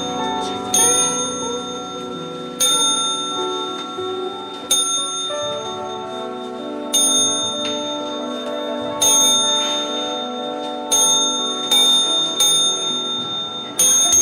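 A small bell dinging again and again, about every two seconds at first and then more quickly near the end, each strike ringing on briefly, over background music.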